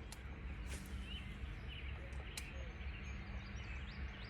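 Outdoor ambience: faint bird chirps over a steady low rumble, with a few sharp light clicks.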